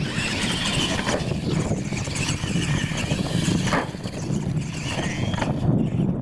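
Radio-controlled monster trucks racing on dirt: the electric drive motors whine, rising and falling in pitch with the throttle, over a low rumble, with a couple of sharp knocks as the trucks hit the ramps.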